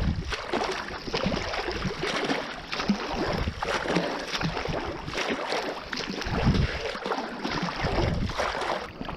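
Swimming strokes in open sea: water splashing and sloshing around a camera riding at the surface, with uneven splashes coming every second or so.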